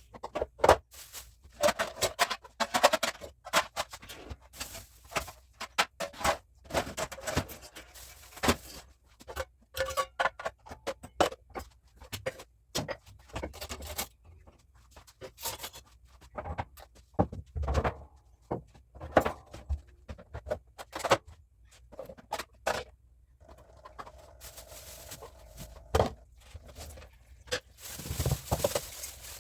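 Irregular clicks, knocks and light clatter of household items being handled and set down, like containers and packages being moved while a fridge is cleaned and stocked.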